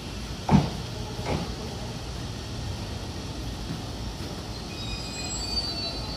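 Chuo-Sobu Line electric commuter train rolling into the platform with a steady rumble. Two sharp knocks come about half a second and just over a second in, the first one loud. Near the end a thin, high brake squeal sets in as it slows to a stop.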